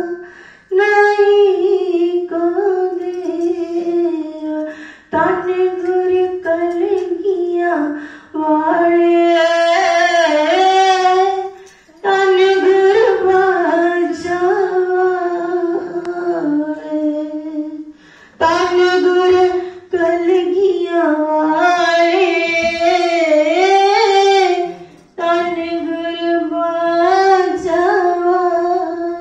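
Female voice singing a Gurbani shabad (Sikh devotional hymn) in sustained melodic phrases, with short pauses between lines.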